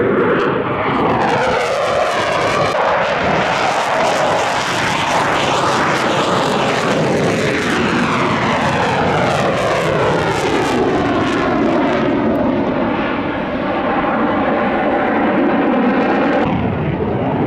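Military jet aircraft flying past at an air show, a loud steady engine rush whose tone sweeps down and back up as it passes; the deepest part of the sound drops away near the end.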